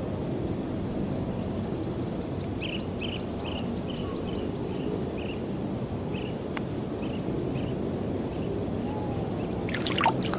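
A bird calling a series of short chirps, about two a second, starting a few seconds in and stopping a couple of seconds before the end, over a steady low outdoor rumble. A brief burst of sharp clicks or splashes comes right at the end.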